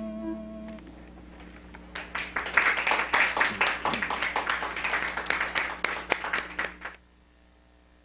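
Small studio audience applauding for about five seconds, then cut off abruptly. Before it, a held electronic keyboard chord fades out within the first second.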